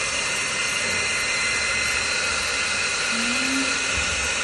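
iTeraCare terahertz blower running, its small fan motor giving a steady, unchanging whir.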